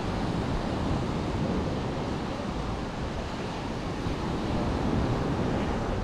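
Sea surf washing onto a sandy beach, a steady rush of water, mixed with wind buffeting the microphone.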